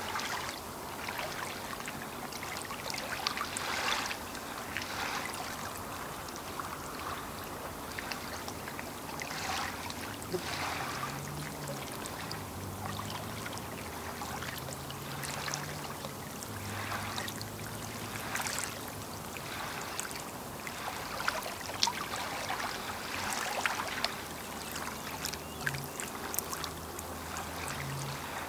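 Small waves lapping and splashing at the lake shore in irregular washes every second or two. A faint low hum comes and goes in the second half.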